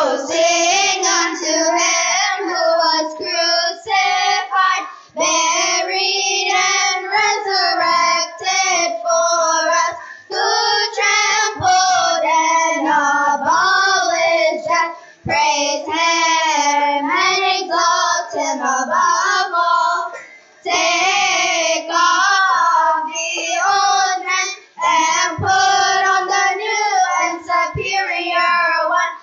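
Children's choir singing together, phrase after phrase with short breaks between them.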